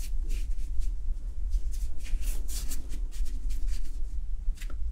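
A large watercolour brush sweeping back and forth over wet watercolour paper, with short brushing strokes about two or three a second, laying in a sky wash. A steady low hum sits underneath.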